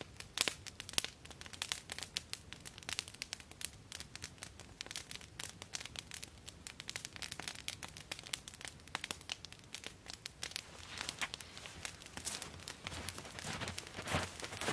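Wood campfire crackling, with many irregular sharp snaps and pops. Near the end, footsteps crunch in snow.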